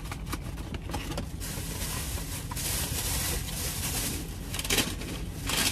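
Paper and plastic takeout packaging rustling and crinkling as it is handled, with a denser stretch of crinkling in the middle, over a low steady rumble.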